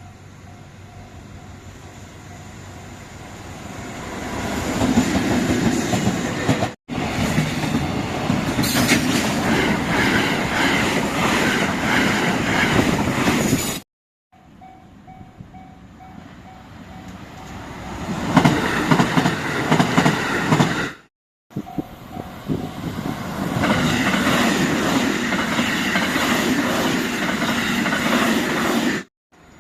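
Level-crossing warning bell ringing in a steady pulsing rhythm as electric trains pass through the crossing, their wheels running loud on the rails. Four short passes are spliced together, each cutting off suddenly.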